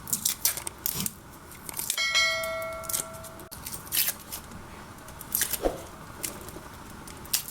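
Cloves of red garlic being peeled by hand: scattered small clicks and crackles of the papery skin. About two seconds in, something rings once with a clear, bell-like tone that fades over a second and a half.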